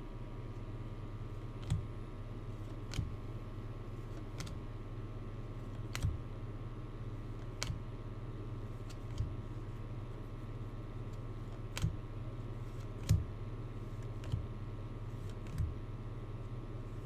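Light, separate clicks, about one every second or so, over a steady low electrical hum.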